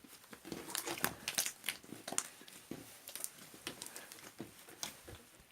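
Irregular soft rustling with small clicks and taps, close up, with no steady rhythm.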